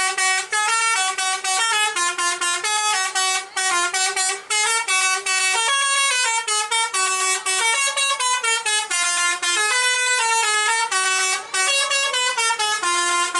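Tour bus telolet basuri horn playing a quick, flute-like tune of short notes that step up and down, loud and without a break.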